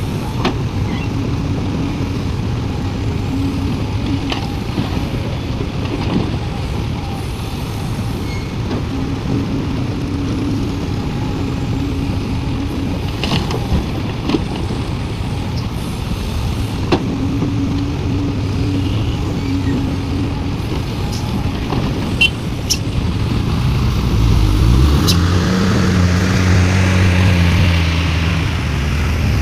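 Sumitomo SH350 hydraulic excavator's diesel engine running steadily while it loads overburden soil into a dump truck, with a recurring hydraulic hum and scattered sharp knocks and clanks. About three-quarters of the way through, the engine revs rise and hold higher.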